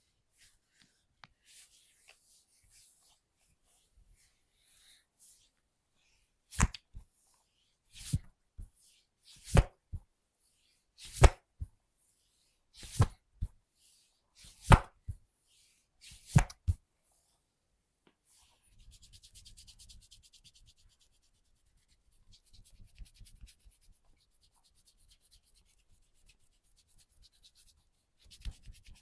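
Hands working over a body in a massage: light rubbing, then seven loud, sharp slaps evenly spaced about a second and a half apart. Then a fast, steady rubbing over the skin near the end.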